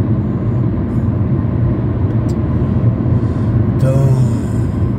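Steady road and engine noise heard inside a car's cabin cruising at highway speed, a low rumble that holds even throughout.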